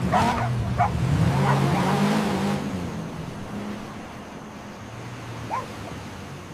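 Racing car engine sound: a low engine note that rises a little, then settles and gradually fades away.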